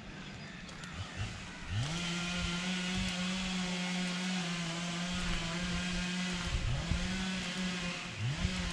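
A locomotive's low pitched tone that swoops up and holds steady for about five seconds, then comes back as two shorter swooping tones near the end.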